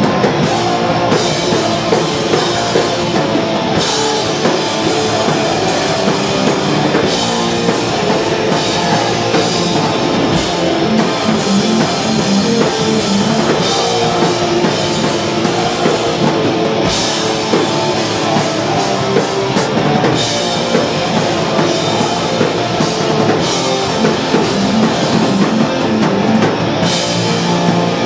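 Hardcore punk band playing live and loud: distorted electric guitars over a driving drum kit.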